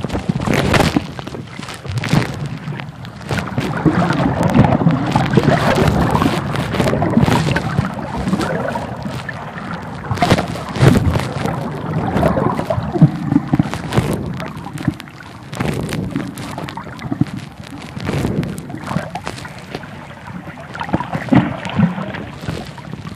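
Muffled, uneven underwater water noise, sloshing and gurgling, picked up by a phone held below the surface, with irregular knocks scattered through it.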